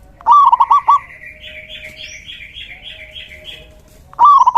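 Male zebra dove (perkutut) singing its staccato cooing phrase of four or five quick notes, twice, about four seconds apart. Between the two phrases a fainter, higher run of about nine even chirps.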